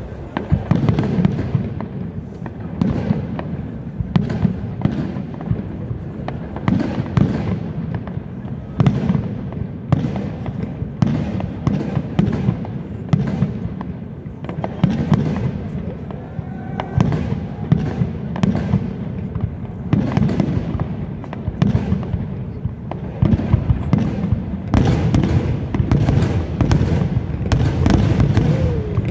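Aerial fireworks display: firework shells bursting in an unbroken run of bangs with a low rumble, coming thicker near the end.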